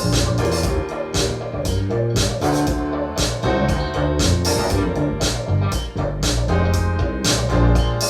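Music played back through a pair of vintage SABA 1300 Professional Ultra HiFi loudspeakers: a keyboard-led instrumental with bass and drums over a steady beat.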